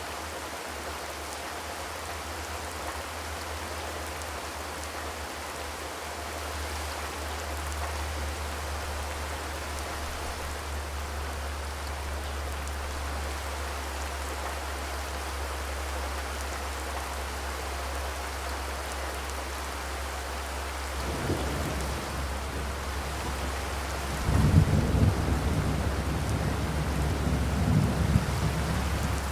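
Steady rain falling on a zinc roof, an even patter and hiss. In the last several seconds a low rumble comes in and swells louder.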